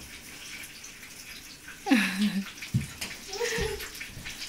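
Short wordless voice sounds over a steady hiss: one falling from high to low about two seconds in, and a brief higher one a little later, with two soft thumps between and after them.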